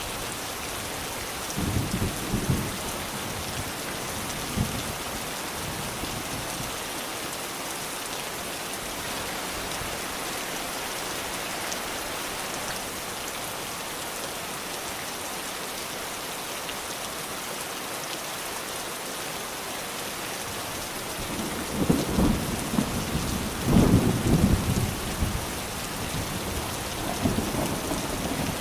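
Steady rain falling, an even hiss, with thunder rumbling low: briefly about two seconds in, and again more loudly for a few seconds near the end.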